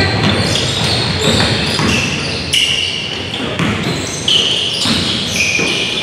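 Basketball being dribbled on a hardwood gym floor, with a few short high squeaks of sneakers on the court.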